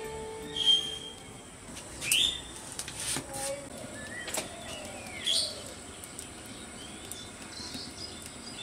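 Birds chirping in short calls and sweeps, the loudest about a second, two seconds and five seconds in, over a faint steady high whine.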